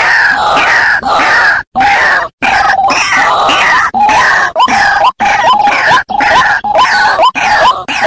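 White-breasted waterhen (ruak-ruak) calls used as a bird lure: harsh repeated notes, overlapping at first, then settling into a regular run of about two notes a second, each ending in a sharp upward hook. A few abrupt gaps of silence break the calling.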